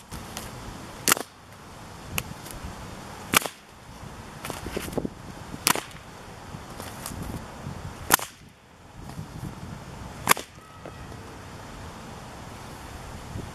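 A 2.30 m brown leather cattle whip being cracked: five loud sharp cracks about every two and a half seconds, with fainter snaps between them, and the cracking stops about three-quarters of the way through.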